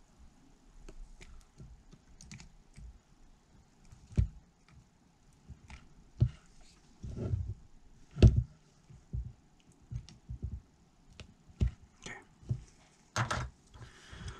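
Scattered light clicks and knocks of an 18650 lithium-ion battery pack and soldering tools being handled, with a few sharper knocks about four, six and eight seconds in.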